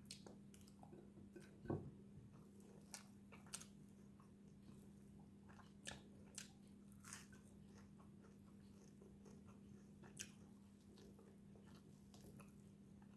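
Faint chewing and biting of fried fish: soft crunches and mouth clicks scattered every second or so over a steady low hum.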